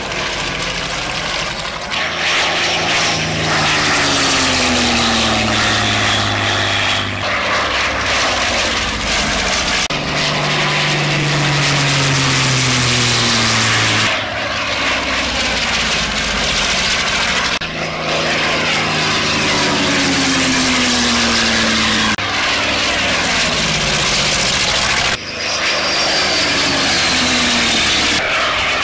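Piston engines of a Focke-Wulf Fw 190 A-5 and a Messerschmitt Bf 109 E 'Emil' fighter running loud in low fly-bys, in a string of short passes. In each pass the engine pitch falls as the plane goes by, and some passes carry a high falling whine.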